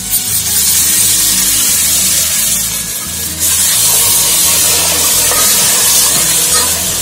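Wet green masala paste and ground spices hitting hot oil and browned onions, sizzling hard in a deep pot. The sizzle eases for a moment about three seconds in, then flares up again.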